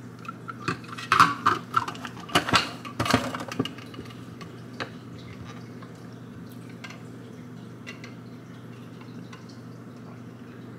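Plastic straw clinking and knocking inside a plastic tumbler as a powdered drink is stirred and handled: a quick, irregular run of clinks for the first few seconds, then only a steady low hum with an occasional faint tick.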